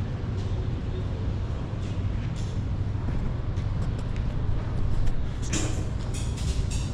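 A ferry's engines droning steadily, with rushing noise over them that swells in a few short bursts near the end.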